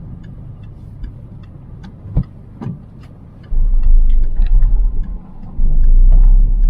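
Car on the move heard from inside the cabin: steady engine and road rumble with a couple of short knocks, then a much louder deep low rumble setting in about three and a half seconds in.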